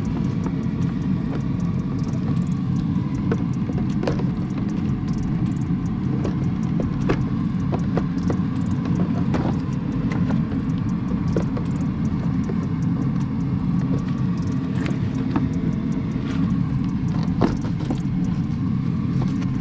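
Scattered light plastic clicks and knocks as gloved hands work a new air filter into the Mazdaspeed 3's plastic airbox and press the lid down, over a steady low rumble.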